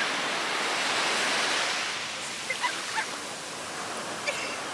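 Ocean surf washing up the beach, a steady hiss of breaking waves that swells over the first two seconds and then eases a little.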